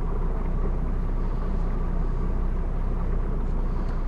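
Boat's outboard engine running steadily while the boat moves across the lake, a constant low hum with water and wind noise over it.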